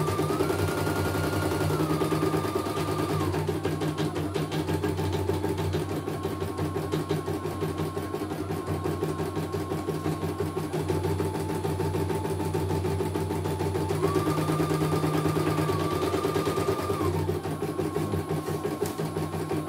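Computerized embroidery machine stitching a design: a rapid, even needle clatter under a motor whine that steps up and down between a few pitches. It runs smoothly, with no problems.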